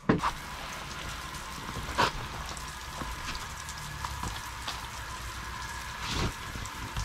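Light rain pattering steadily on and around a wooden outdoor shower stall, with a few louder taps of drops or knocks: one right at the start, one about two seconds in and one near the end.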